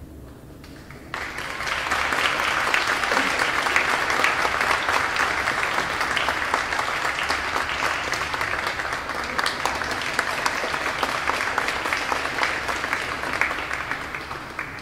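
Audience applauding, starting suddenly about a second in and fading away near the end.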